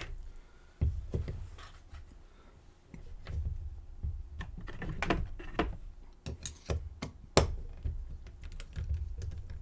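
Small metal clicks and taps from lock picks and a tension tool working in a padlock, with handling knocks. One sharp click about seven seconds in.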